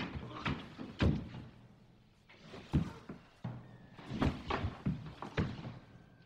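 Irregular heavy thuds and knocks on wooden floorboards and a wooden wall: a man staggering, stumbling against the wall and collapsing to the floor, with a lull between knocks about a second and a half in.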